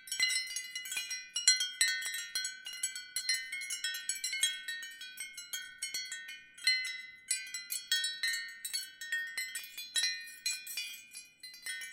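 Ceramic wind chimes tinkling lightly: clusters of quick, overlapping high-pitched strikes at irregular intervals, each ringing briefly, with short lulls about halfway through and near the end.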